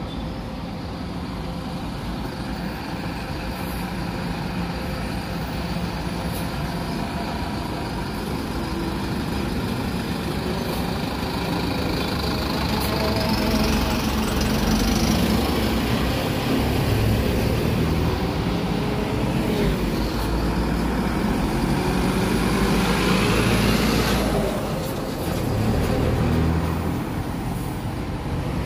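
City bus diesel engines running close by, with the noise building up through the middle as buses move off. It drops away sharply a few seconds before the end.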